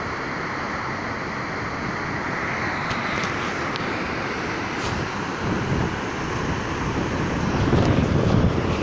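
Waterfall rushing steadily, an even wash of falling water. In the second half, gusts of wind noise buffet the microphone.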